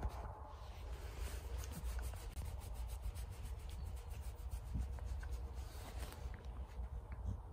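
A hand rubbing and scratching a Staffordshire bull terrier's belly, the short fur and the fabric bedding under the dog rustling, with a run of quick scratching strokes early on.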